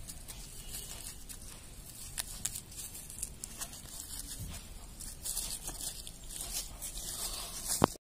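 Soft rustling and small crackles of fresh leaves being handled, as a seedling is wrapped in a leaf and a thread is wound round it, with one sharp click just before the end.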